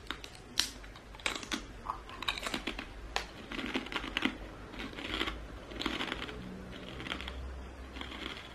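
Crisp crunches of teeth biting into crispy fried chicken skin, followed by a run of crunchy chewing that thins out near the end.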